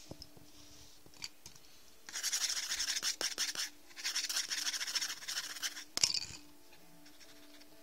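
Pencil shading back and forth on sketchbook paper in rapid scratchy strokes, in two stretches, the first starting about two seconds in and lasting about a second and a half, the second lasting about two and a half seconds.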